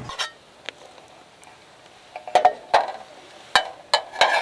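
A run of about seven sharp clicks and clinks at irregular intervals, bunched in the second half, like small hard objects such as tableware or camp cookware knocking together.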